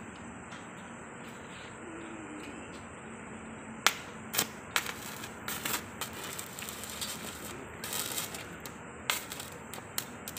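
Stick arc welding on a steel barrier pipe: about four seconds in the arc strikes and crackles and spits irregularly, with sharp pops.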